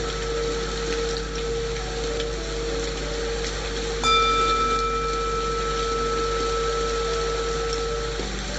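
A singing bowl is struck once about four seconds in and rings on with several clear overtones that fade slowly. Under it run a steady lower bowl-like tone and the even hiss of rain white noise.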